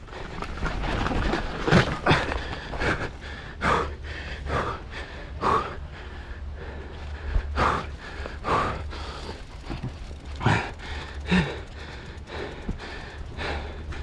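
A mountain biker breathing hard while riding, about one heavy breath a second, over a steady low rumble.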